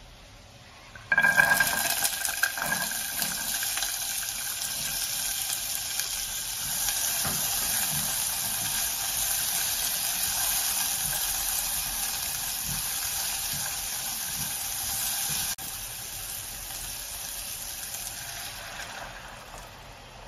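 Diced vegetables hitting hot oil in a small saucepan and sizzling, starting suddenly about a second in, with a spatula stirring them; the sizzle drops a little later on and dies down near the end.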